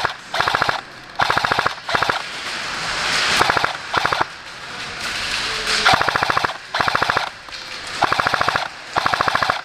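A&K M249 Mk46 airsoft electric gun firing on full auto in repeated short bursts, about eight in all, each roughly half a second of rapid rattling shots, with short pauses between.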